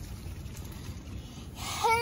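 Low steady rumble, then near the end a child's short, high-pitched whining cry that arches up and down in pitch.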